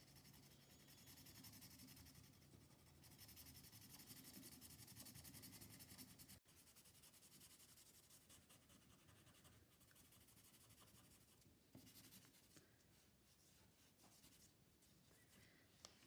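Faint scribbling of a black felt-tip marker on paper as a circle is coloured in solid, a little louder at first and fainter in the second half.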